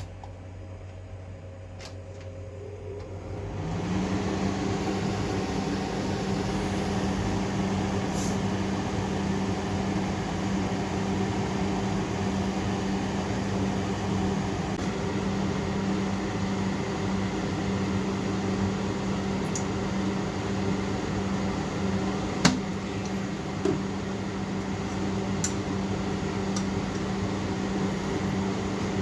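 A steady motor hum with an even hiss switches on about three and a half seconds in and runs on at a constant level, with a few faint clicks.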